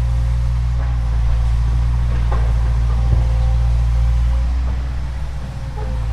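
Excavator's diesel engine running steadily, with a few faint knocks and scrapes; it eases off slightly about five seconds in.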